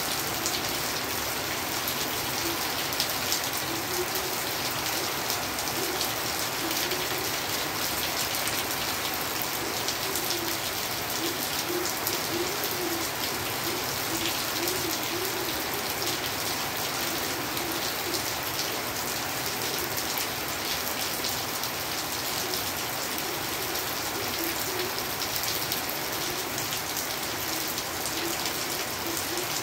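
Steady rain falling on a surface, a dense, even patter of drops that holds at one level throughout.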